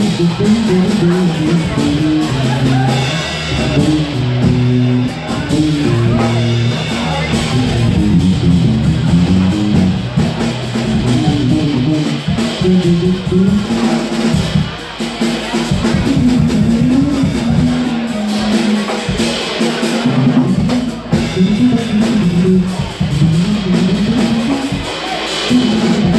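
Electric bass guitar and drum kit playing together live: a moving bass line low down over drums and cymbals.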